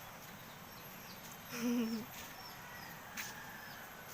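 Faint outdoor ambience with small birds chirping now and then in short high falling notes, and a brief low wavering call about one and a half seconds in.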